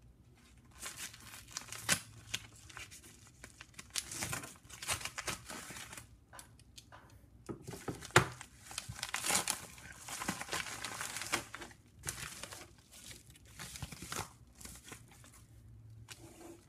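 Padded paper mailer being torn open and crinkled by hand, in irregular bursts of tearing and rustling with a few sharp clicks.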